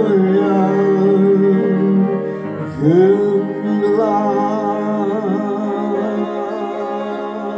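A man singing long held notes over upright piano chords, sliding into a new note about three seconds in.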